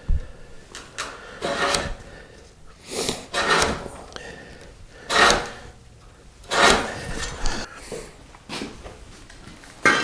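About six short scraping, sliding knocks a second or two apart: metal jack stands and steel tubing being shifted and set down.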